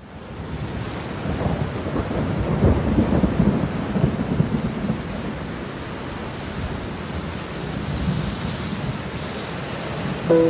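Steady rain with a long roll of thunder, fading in from silence at the start. The low thunder rumble is strongest a couple of seconds in, then eases back under the rain.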